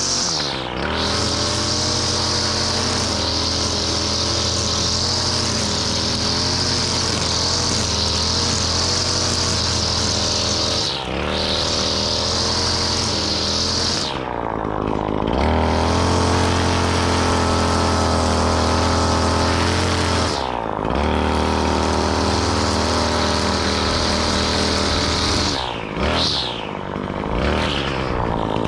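Lawn mower engine running steadily under load, its speed dipping briefly and recovering several times, with a steady hiss above the engine note.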